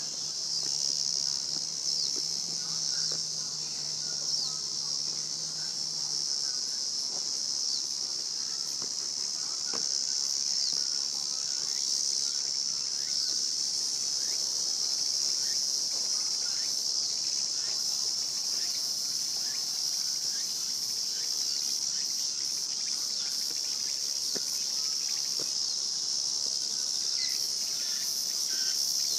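Dense, steady, high-pitched chorus of insects, unbroken throughout.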